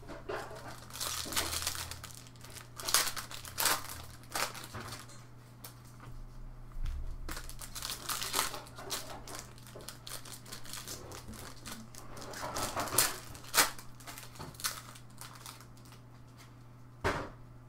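Trading-card pack wrappers crinkling and tearing as football card packs are ripped open and the cards handled, in irregular bursts of crackle. A single sharp tap comes near the end, over a low steady hum.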